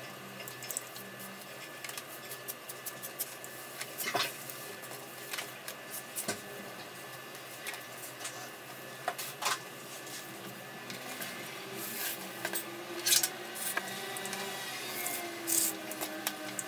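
Nylon paracord being handled and pulled while a lanyard is tied: scattered rubbing and rustling with occasional sharp clicks and taps, the loudest near the end, over a steady low hum.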